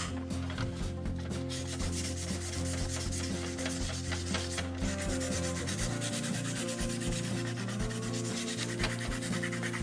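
Hand sanding the painted body of a scale RC Jeep Cherokee with quick, continuous back-and-forth scratchy strokes, wearing through the paint to give it a faded patina.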